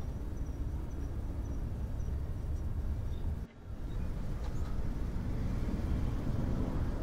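Low, uneven outdoor background rumble, with a brief dip about three and a half seconds in.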